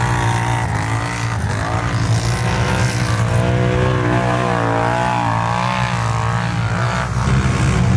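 ATV engines running hard in deep mud, their pitch wavering up and down as the throttle is worked.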